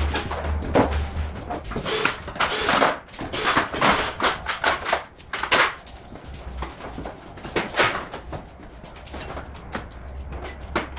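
Irregular metallic clanks and clicks of hand tools and car parts being handled and set down, with a low hum in the first second or so.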